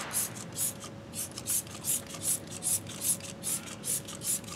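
Trigger spray bottle of Mothers wheel cleaner being pumped quickly and repeatedly, a short hissing squirt about every third of a second, onto an alloy wheel and brake caliper.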